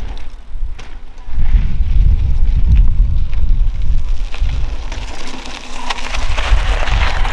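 Wind buffeting the microphone in loud, gusting rumbles, with a mountain bike's tyres crunching over the dirt track. The tyre noise grows louder and grittier, with a few sharp clicks, from about five seconds in as the bike comes up close.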